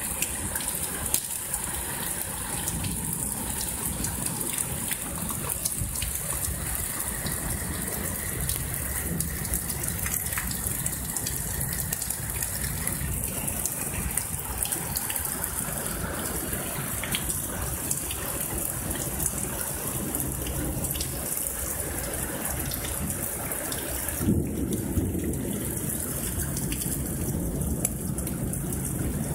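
Heavy thunderstorm rain pouring down in a steady hiss, with many close drop hits ticking against nearby surfaces. About 24 seconds in, the sound turns deeper and briefly louder.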